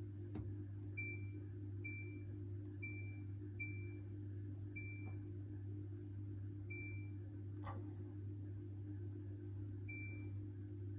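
Hoover H-Wash 600 washing machine control panel beeping as its buttons are pressed: seven short, identical high beeps at uneven intervals, over a steady low hum.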